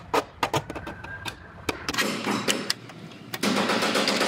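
Metal hand scribe's tip on sheet-metal body panels, marking the cut line along the edge of an overlapping replacement quarter-panel section: a few light clicks and ticks, then two stretches of steady scratching, about a second each, from about two seconds in.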